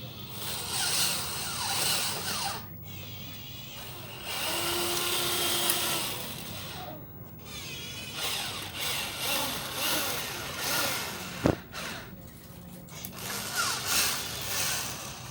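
Small electric motor and gears of a cheap toy RC truck whirring in repeated bursts, the whine rising and falling in pitch. There is one sharp knock about eleven seconds in.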